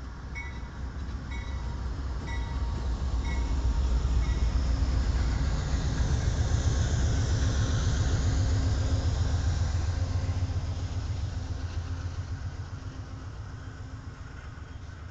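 Amtrak diesel passenger locomotive passing close by, its low engine rumble swelling to a peak and fading as bilevel passenger cars roll past, with a hiss that rises and falls as the locomotive goes by. A bell rings about once a second for the first few seconds.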